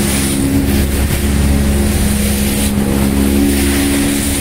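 A speedboat's outboard motor runs at a steady drone while the boat is under way. Spray splashes against the hull, and wind rushes over the microphone.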